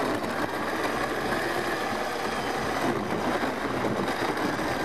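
Countertop blender running at high speed, steady and even, puréeing roasted bell peppers, mushrooms and almonds in hot chicken stock into a thick soup.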